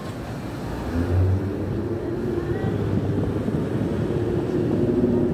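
Low, steady engine hum of a motor vehicle, getting louder about a second in and holding.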